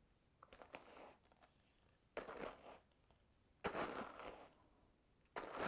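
Wooden hand carders brushing fibre, the wire-toothed pads drawn across each other in four strokes about a second and a half apart, blending sari silk into the wool.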